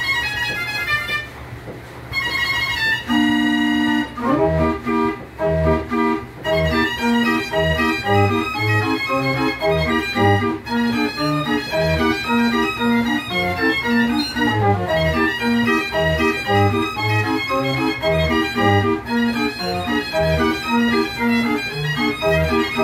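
Large mechanical band organ playing pipe music. A tune ends about a second in, and after a short pause a new tune opens with a held chord and runs on as a lively piece over a steady beat of bass notes and chords.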